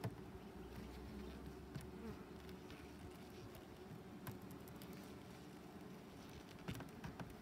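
Honeybees buzzing in a faint, steady hum around an open hive, with a few light knocks of wooden hive frames being pushed together.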